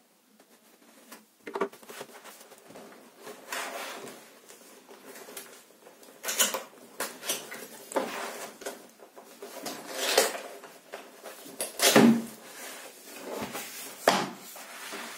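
Keyboard box and its packaging being handled during unboxing: a string of irregular rustles, scrapes and knocks, loudest about 12 seconds in.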